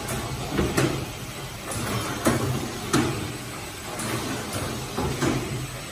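Film overwrapping machine running: a steady low hum with sharp mechanical clacks repeating a little more than once a second as it cycles.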